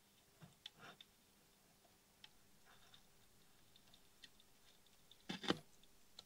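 Faint clicks and crackles of soldering, as the iron melts rosin-cored solder onto a turret terminal and the flux spits. A short, louder crackle comes about five seconds in.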